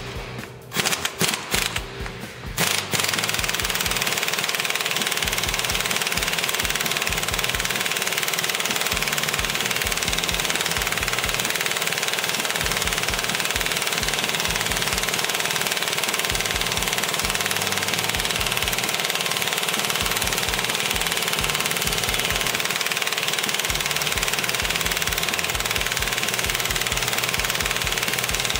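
Heavy-duty impact wrench hammering on the forcing screw of a U-joint puller, pressing a bearing cup out of a truck driveline yoke. It starts with a few short bursts, then runs as one long, steady, rapid rattle.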